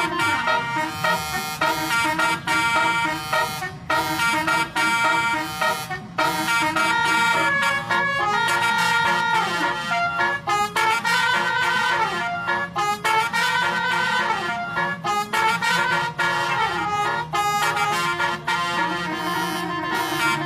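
A bus's multi-tone 'basuri' telolet horn playing a tune: a melody of held notes changing pitch, broken by short gaps between phrases.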